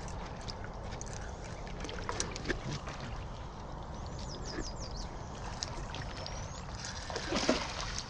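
Steady outdoor background noise with scattered light clicks. A quick run of high bird chirps comes about halfway through, and a brief low call comes near the end.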